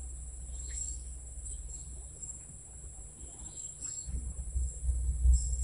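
Insects giving a steady, high-pitched chirr from the surrounding bushes. A low rumble of hand-held microphone handling comes in during the second half.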